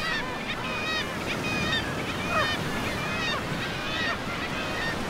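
Surf breaking and washing in a steady rush, with a flock of birds calling over it in many short, arching, repeated calls.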